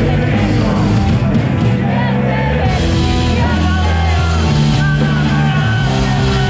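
Rock music played loud, with held bass notes that change every second or so under dense guitar-like sound.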